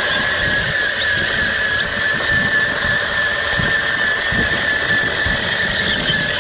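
Toy construction vehicle running: a steady high motor whine, wavering slightly in pitch, over a rough rumbling engine-like noise.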